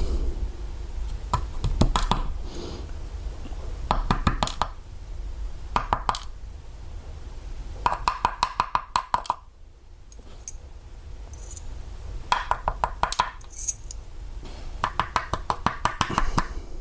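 Small metal lock pins clinking and rattling as the key pins are worked out of a padlock's cylinder, in about six short bursts of rapid clicks a couple of seconds apart.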